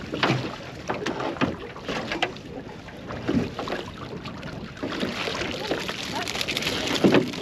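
Crab pot hauled up out of the water over the side of a small aluminium boat: water splashing and draining from the mesh, heavier about five seconds in as the pot clears the surface, with a few knocks against the boat's side.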